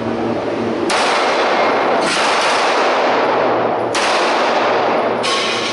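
Four pistol shots fired about one to two seconds apart. Each sharp crack is followed by a long, loud noisy wash.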